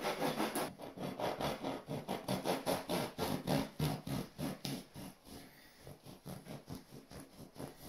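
A knife sawing through the crusty top of a tiger loaf in quick back-and-forth strokes, a few a second, growing fainter in the last few seconds.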